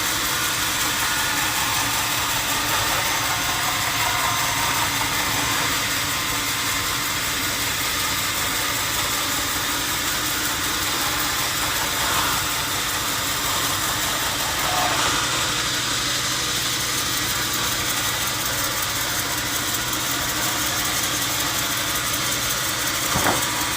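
An engine or machine running steadily at an even speed, with a single sharp knock near the end.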